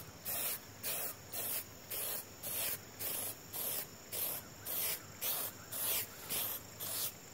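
Aerosol can of Plasti Dip rubber coating spraying in short hissing bursts, about two a second, as it is worked back and forth over a plate.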